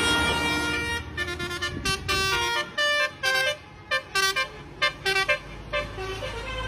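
Basuri telolet bus horn playing a tune: a held multi-tone chord for about the first second, then a quick run of short notes that jump in pitch, ending about a second before the close. A bus engine runs low beneath it.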